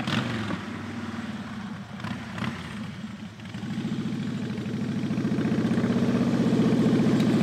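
Cruiser motorcycle engine running at low speed with a steady pulse, growing louder over the second half as the bike rides closer.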